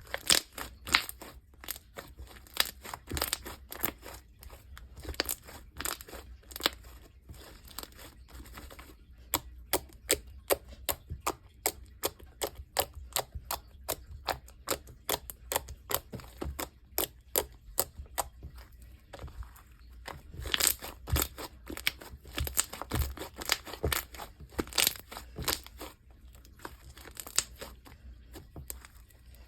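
Hands kneading and stretching a fluffy slime, making a rapid, irregular run of small sharp pops and crackles, with a few short lulls.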